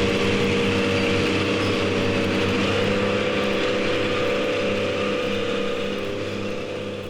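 An engine running steadily, its note shifting up about two and a half seconds in, then starting to fade out near the end.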